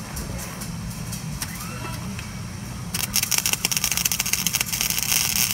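Electric arc welder laying a bead on steel tube: a loud, dense crackle of the arc starts about three seconds in, over a steady low hum.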